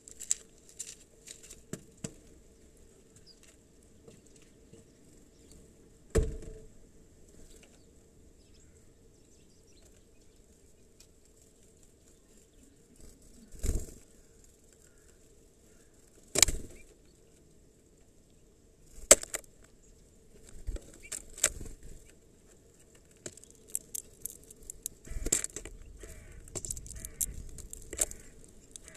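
Small birds landing on and flying off a plastic bottle feeder of sunflower seeds: sharp knocks on the plastic and brief wing flutters, a few seconds apart at first, then coming thicker and faster in the last third.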